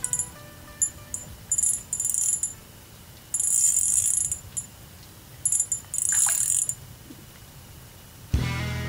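High-pitched insects trilling from the riverbank vegetation in stuttering bursts that start and stop every second or so. Loud background music comes in suddenly near the end.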